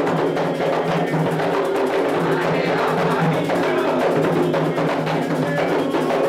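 Atabaque hand drums playing a continuous Candomblé toque for Oxum's rum, a fast steady pattern of strokes with sharp, clicking percussion among them.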